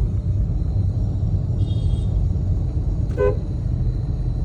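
A vehicle horn gives a short toot about three seconds in, with a fainter, higher beep a little before it. Both sound over a steady low rumble of engines and road traffic.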